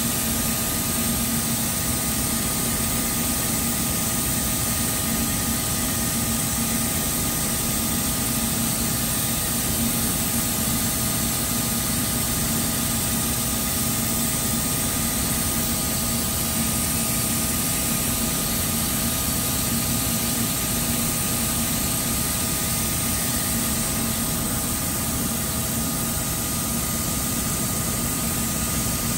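Steady hum and rush of air from the ventilation running through a mobile paint spray booth, which draws spray-gun overspray and paint fumes out to a filter bank as paint is sprayed. It runs evenly with no breaks.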